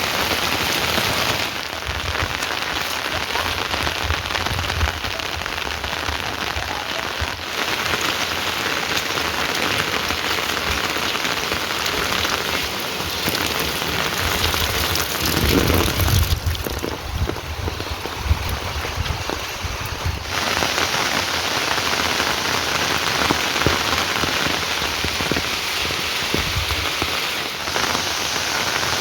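Heavy rain falling steadily, a dense hiss of drops on surfaces. Its tone changes abruptly several times. A low rumble swells briefly about halfway through.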